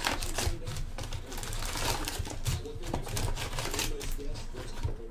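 Rustling and crinkling as trading-card pack wrappers and cards are handled, a quick uneven run of small clicks and crackles.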